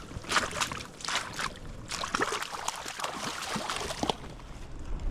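Water splashing and sloshing in irregular bursts, which stop about four seconds in.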